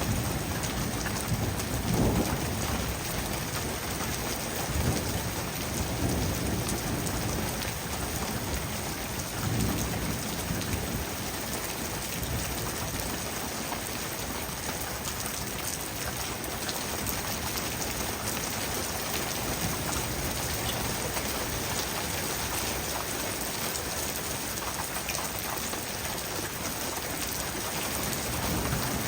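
Heavy rain falling steadily in a thunderstorm, with low rumbles, likely thunder, swelling about two, five and ten seconds in.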